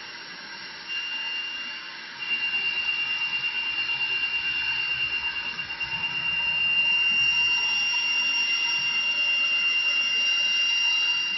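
High-speed CNC router spindle running with a steady high whine while its small bit drills rows of holes into an acrylic bangle. The whine gets louder about two seconds in.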